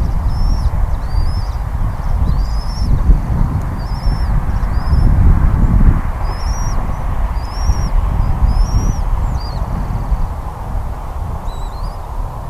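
A bird giving a rapid series of short, high chirps, roughly one a second, each rising then levelling off, thinning out near the end. Under them runs a loud, steady low rumble.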